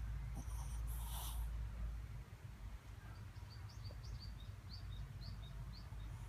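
A napping Chihuahua–dachshund mix gives a short, hissy snoring breath about a second in. Then, from about three seconds in, a small bird chirps a run of about eight short, high notes, a few a second, over a low steady hum.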